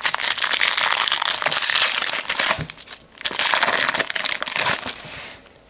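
Foil wrapper of a trading-card pack crinkling as it is torn open by hand, in two long stretches with a short lull about halfway through.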